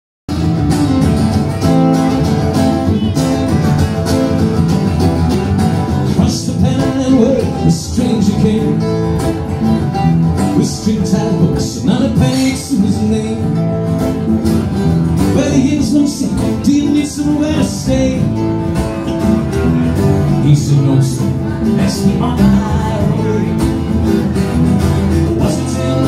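Live acoustic band playing a country-style song: strummed acoustic guitars over a bass line, with a male lead vocal.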